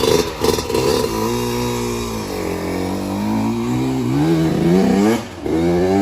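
Yamaha YZ125X's two-stroke single-cylinder engine being revved: a few sharp throttle blips, then the revs sag, hold low, climb again, dip briefly about five seconds in and rise once more.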